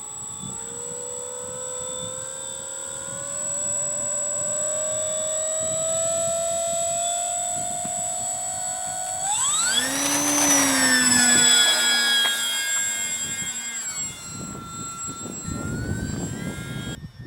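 Electric motor and propeller of a ParkZone FW-190 RC warbird whining in flight. The pitch climbs slowly, then jumps up sharply with throttle about nine seconds in, holds, eases back and rises again near the end.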